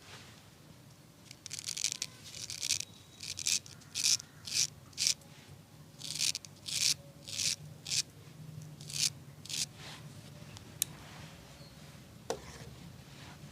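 A series of about a dozen quick rubbing strokes against hair or skin, uneven in spacing, followed by two sharp clicks near the end.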